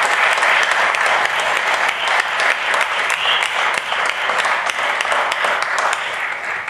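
Theatre audience applauding, a dense patter of hand-claps that begins to thin out and fade near the end.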